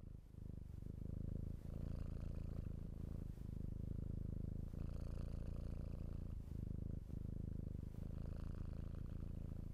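Domestic cat purring steadily, fading in over the first second, with a brief break at each breath about every one to two seconds.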